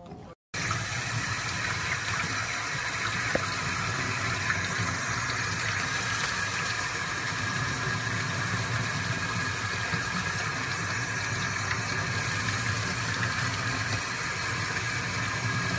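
Water running steadily from a sink faucet onto a puppy being washed under the stream, starting abruptly about half a second in.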